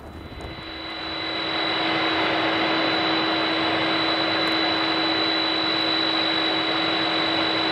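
Jet turbine whine fading in over about two seconds, then holding steady: a high whistle and a lower hum over a loud rushing hiss.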